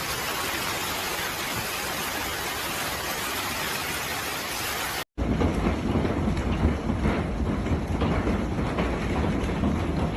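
Hailstorm with heavy rain: a steady hiss for about five seconds, then, after an abrupt cut, a louder and deeper rush with many sharp hits of hailstones striking.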